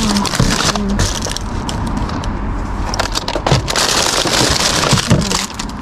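Rummaging through a dumpster of discarded food: plastic bags and packaging rustling and crinkling, with many sharp crackles.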